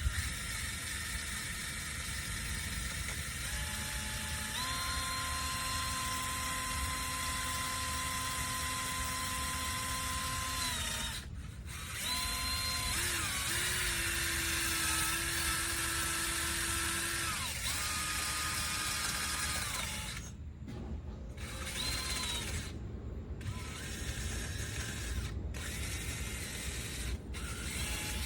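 Power ratchet spinning lug nuts on a car wheel, running in long steady whining spells that drop in pitch as each one stops, then in short stop-start bursts near the end.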